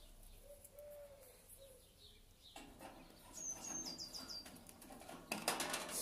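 Lovebird chirping: a quick run of short, high chirps stepping down in pitch about three and a half seconds in. Near the end comes a brief rattle of the wire birdcage being handled.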